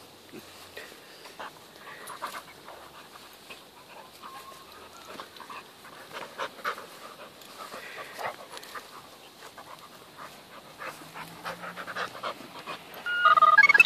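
A red puppy and a large bull-type dog play-fighting, panting heavily, with many short irregular scuffles and breaths. Near the end comes a sudden louder pitched cry.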